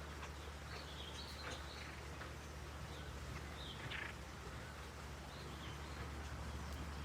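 Small birds giving short, high chirps a few times, about a second in, around four seconds and again near the end, over a steady low background rumble.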